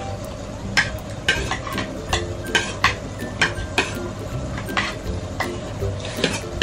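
Spoons and forks clicking and scraping against ceramic plates and bowls during a meal, in frequent short, sharp clinks at uneven intervals.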